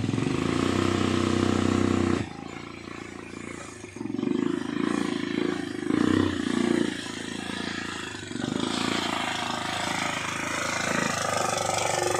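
ATV (quad bike) engine running. A loud steady drone for about two seconds gives way to a quieter, uneven note that surges and eases, then grows louder near the end as the quad draws close.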